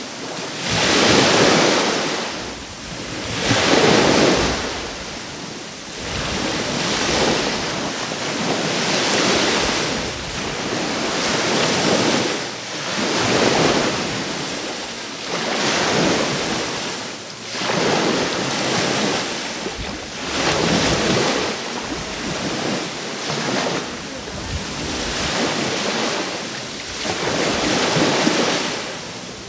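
Small waves breaking and washing onto the shore, each surge of surf swelling and fading about every two to three seconds.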